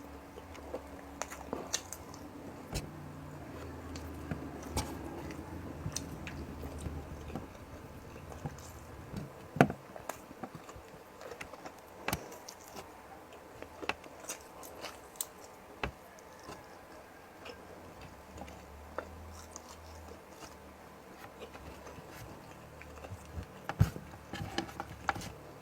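Close-up eating sounds: chewing and mouth noises over a meal of bullet tuna stewed in coconut milk, with many scattered sharp clicks, the loudest about ten seconds in and again near the end.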